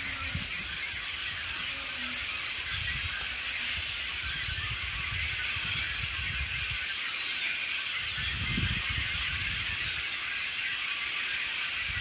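A large flock of small songbirds in a tree chattering all at once: a dense, continuous wash of overlapping high chirps and squeaks. Wind rumbles on the microphone now and then.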